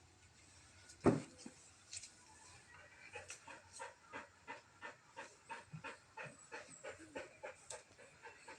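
A dog panting rhythmically, about three breaths a second, starting about three seconds in. A single sharp thump about a second in is the loudest sound.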